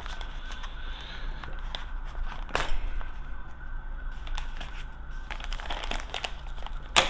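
Clear plastic bag crinkling and rustling as it is cut open with scissors and pulled apart. A sharp click comes about two and a half seconds in, and a louder knock right at the end.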